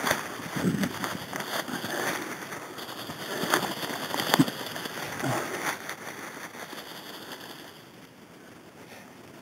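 Dry fallen leaves crackling and rustling as something moves through forest leaf litter, with a few sharper snaps around the middle. The sound dies away near the end.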